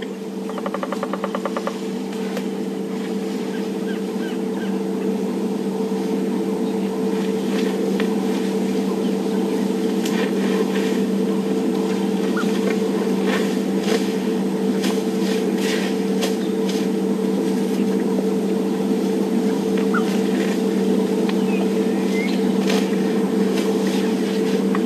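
Vehicle engine idling with a steady low hum, growing a little louder over the first few seconds and then holding level. Scattered faint clicks and rustles sound over it.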